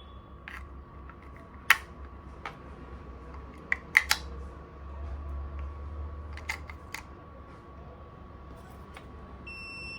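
Sharp plastic clicks and snaps as AAA batteries are fitted into a digital kitchen timer's battery compartment, then one short high electronic beep near the end as the timer powers up on the fresh cells.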